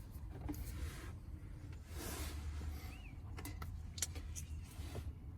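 Plastic cabin air filter tray being slid into the HVAC housing behind the glove box: faint rubbing, then a few light plastic clicks in the second half.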